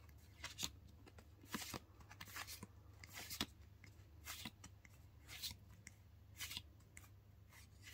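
Pokémon trading cards flipped through by hand, each card sliding off the front of the stack with a faint brief swish, about one a second, some in quick pairs. A steady low hum runs underneath.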